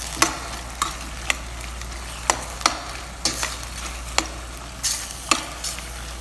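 Diced chicken breast and gizzards sautéing in a stainless steel pot with a steady sizzle, while a spoon stirs them, knocking and scraping against the pot in irregular strikes about every half second.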